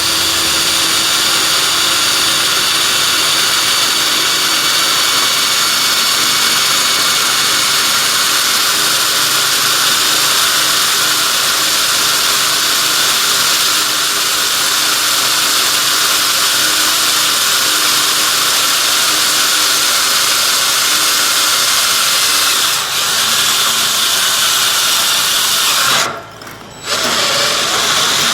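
Hand-held electric drill driving a hole saw through the wall of steel tubing: a steady, loud grinding whine of the motor and the saw teeth cutting the metal. It stops briefly near the end, then starts cutting again.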